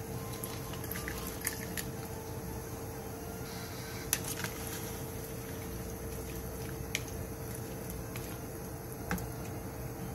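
Vegetables tipped from a bowl into a pan of soy-sauce braising liquid and stirred with a wooden spatula: soft wet splashing and squishing, with a few sharp clicks, over a steady hum.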